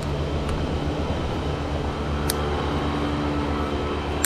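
Fishing reel being cranked fast to retrieve a small minnow lure, a steady whirring hum, with a single sharp click about two seconds in.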